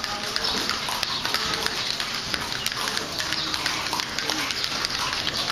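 Horse hooves clip-clopping on a stone-paved street as a horse-drawn kalesa carriage passes.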